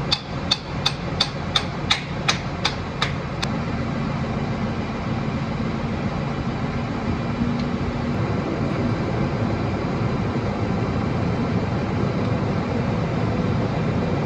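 Tractor engine running steadily, with about ten sharp metallic knocks in the first three and a half seconds, roughly three a second.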